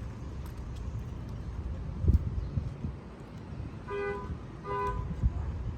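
Steady low rumble of a car, with a thump about two seconds in. Near the end come two short car-horn beeps.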